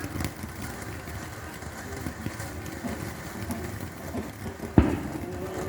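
One sharp bang, a firework going off, near the end over a steady background hiss and rumble.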